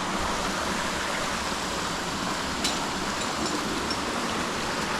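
Canyon stream water flowing in a steady rush, with a faint click about halfway through.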